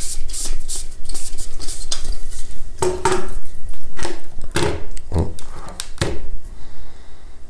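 A camping gas burner is unscrewed from its gas canister and handled, making light metallic clicking and scraping. From about three seconds in come several sharper metal clanks with a short ring, as the burner is set down and the canister handled.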